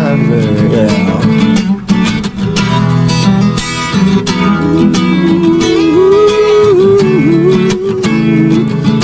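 Instrumental break in a blues-rock song: a guitar lead line with bending notes over strummed guitar chords and a steady beat.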